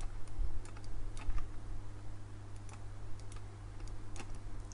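Scattered clicks of a computer mouse and keyboard, irregular and a few at a time, over a steady low hum.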